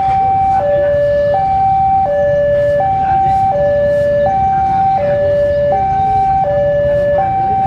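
Railway level-crossing warning alarm sounding, an electronic two-tone signal alternating steadily between a higher and a lower note about every three-quarters of a second, warning of an approaching train, over a low rumble.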